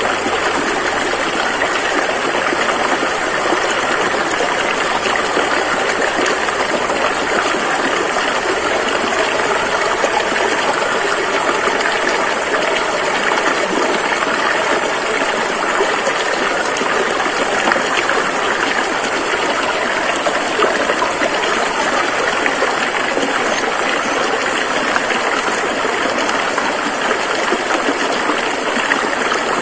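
A river rushing over rocks in a steady, unbroken flow of water noise.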